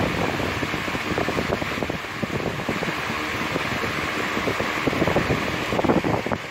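Steady rushing air noise with irregular low buffeting on the microphone, getting a little louder and gustier near the end.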